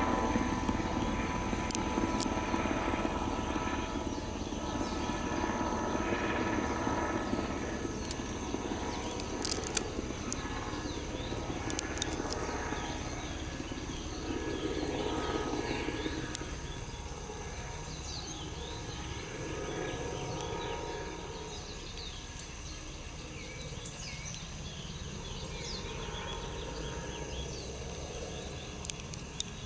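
Outdoor ambience dominated by a low engine drone, of the helicopter or aircraft kind, that fades over the first half. Faint short high chirps come through once the drone has died down.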